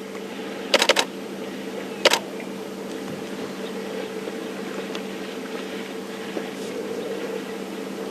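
Steady hum of an idling game-drive vehicle, with a quick run of sharp clicks just under a second in and one more click about two seconds in.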